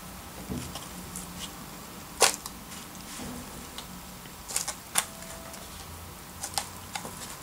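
A plastic spoon scooping potting soil from a plastic tub into a thin plastic cup, with scraping and sharp clicks as it knocks against the plastic; the loudest click comes a little over two seconds in, with a few more later.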